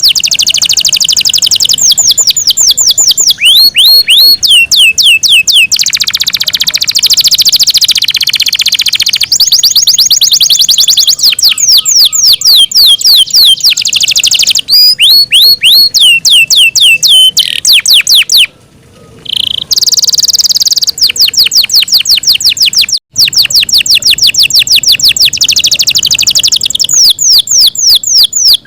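Yorkshire canary singing loudly in long runs of rapid repeated notes: fast downward-sweeping whistles and trills, several notes a second, changing from one rolling phrase to the next. The song breaks off briefly about two-thirds of the way through, then goes on.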